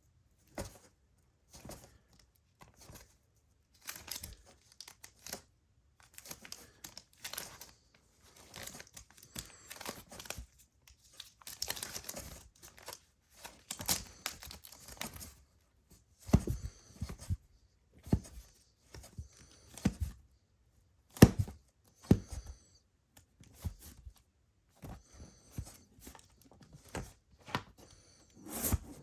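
Vinyl records being flipped through by hand in a box: sleeves rustling and crinkling in irregular bursts, with a few knocks as records drop against each other, the loudest about two-thirds of the way in.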